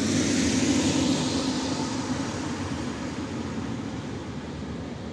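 Tram running on its rails: a steady rumble and hiss that is loudest about a second in and then slowly fades.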